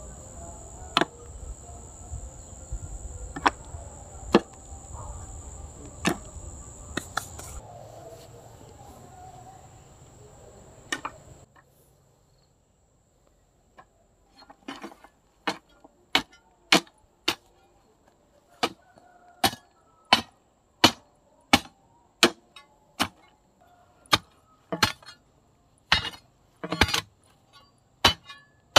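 A steady high-pitched tone over a low rumbling background, with a few scattered clicks. Partway through the sound cuts out, and then a long run of sharp, bright knocks begins, about one every 0.7 seconds, from something striking repeatedly.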